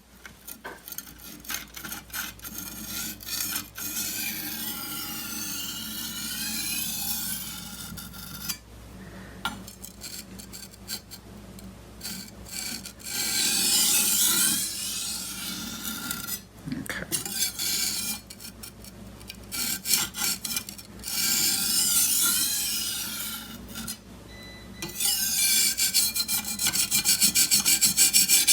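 Steel chef's knife edge scraped back and forth across a coarse Washita (Arkansas novaculite) sharpening stone, a gritty rasping with each pass. The stone is cutting metal fast and raising a burr on the dull edge. Near the end the strokes turn quick and short, several a second and louder.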